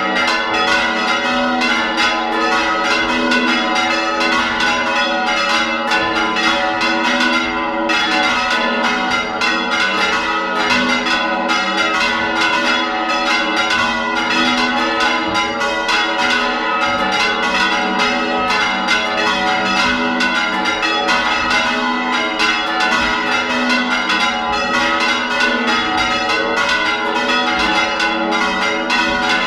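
Church bells ringing close up in a continuous rapid peal, strokes of several bells overlapping with no pause. At least one bell is swung right over, full circle.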